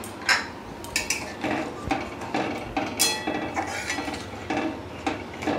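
Metal spatula stirring watery dal in a metal kadai, scraping and clinking against the pan about twice a second.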